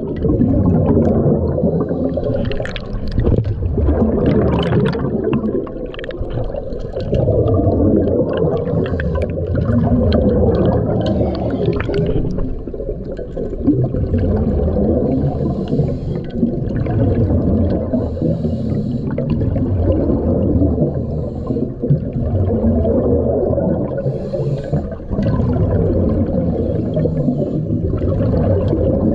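Scuba divers' exhaled regulator bubbles heard underwater: a loud, low bubbling and gurgling rush that comes in uneven surges with occasional crackles.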